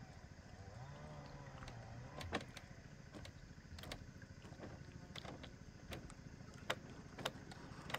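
Footsteps on a walkway of lashed bamboo poles: a few sharp knocks, roughly a second or more apart, over a low steady rumble.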